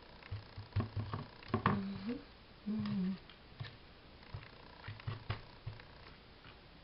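Faint taps, clicks and rustles of hands working a plastic glue bottle and paper trim on a cutting mat. Two brief low hums come about two and three seconds in.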